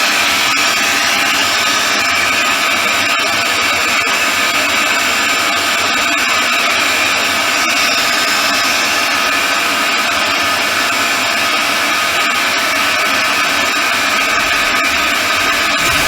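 Tacklife mini circular saw's motor running at a steady speed, a loud even whine over a hiss.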